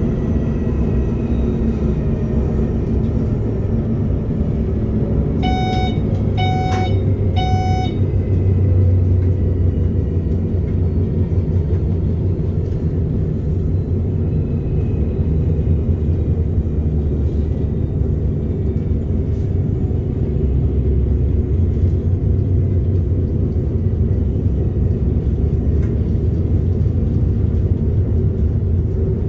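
Steady rumble of an SBB RBDe 560 'Domino' electric regional train running, heard from the driver's cab, with a faint whine slowly falling in pitch over the first eight seconds. About six seconds in come three short electronic beeps, about a second apart.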